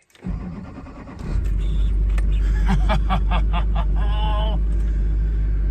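2005 LLY Duramax 6.6-litre V8 turbodiesel cranking on the starter for about a second, then catching and settling into a steady idle. It starts on the first try now that its faulty fuel injection control module has been refurbished.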